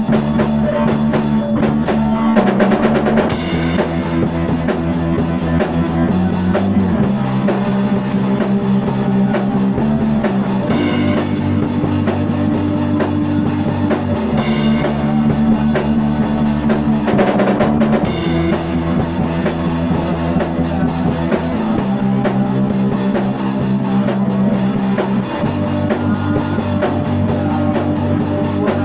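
Rock music played on drum kit and guitar, with a steady beat and chords changing about every three to four seconds.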